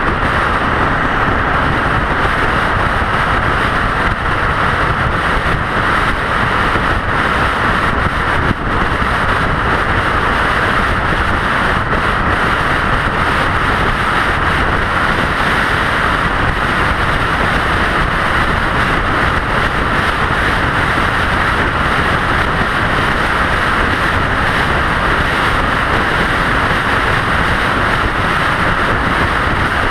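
Steady road and wind noise of a vehicle travelling at highway speed on the interstate.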